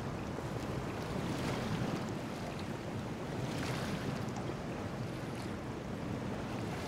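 Wind and sea waves, with wind buffeting the microphone; the rushing noise swells and eases a couple of times over a low rumble.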